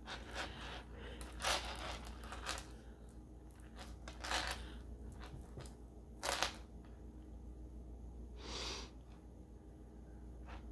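Faint handling sounds of beadwork: scattered small clicks of glass seed beads and needle, with a few brief swishes as thread is drawn through the beads.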